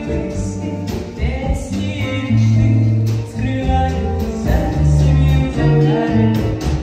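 Music: a song with a singing voice over guitar, running continuously.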